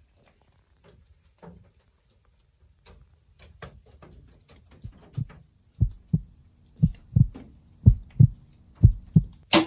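A heartbeat sound effect: low thumps in lub-dub pairs about once a second, starting around halfway. Just before the end comes a sharp crack, the release of the bow shot at a doe.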